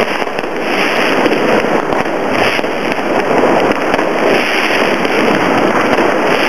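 Many fireworks going off at once: a dense, continuous crackle of pops and bangs with no pauses between them.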